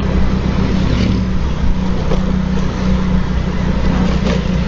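Motor scooter engine running steadily at cruising speed, with wind and road noise over the microphone while riding.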